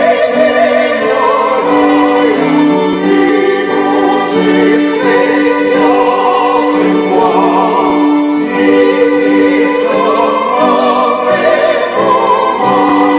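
Voices singing a slow piece in harmony with strong vibrato, accompanied by violins, with a low note held under the melody for long stretches.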